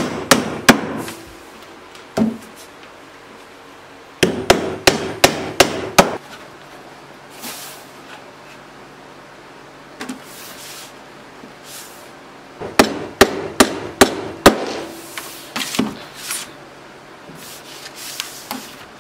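Hammer driving small white nails through thin aluminum coil stock into a wooden board. The blows come in quick runs of five or six, about a second and a half long: one at the start, one about four seconds in and one about thirteen seconds in, with a few single taps near the end.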